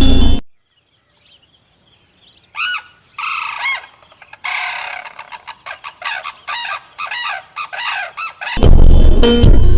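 A bird calling: a few separate arching calls, then a quick run of short repeated ones. Electronic music cuts off at the start and comes back in near the end.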